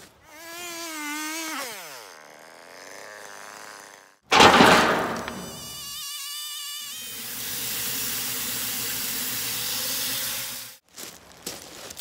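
Band sawmill cutting through a log, a steady engine and blade noise that cuts off abruptly near the end. Before it, a wavering buzzing tone that slides down in pitch, then a loud sudden burst of noise about four seconds in.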